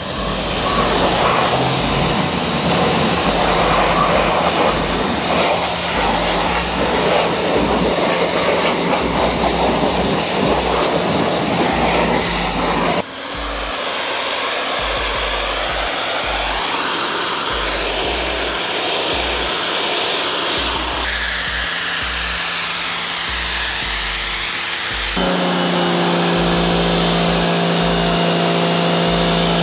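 Giraffe Tools G20 electric pressure washer spraying: a steady hiss of the high-pressure jet on hard surfaces over the hum of its pump motor. The sound changes abruptly three times, and the motor hum is stronger in the last few seconds.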